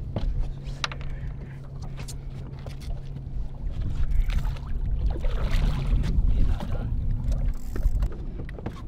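A large hooked tripletail splashing and thrashing at the surface beside a boat, with the splashing loudest from about four to seven seconds in. Under it runs a steady low hum and rumble, with a few sharp knocks in the first two seconds.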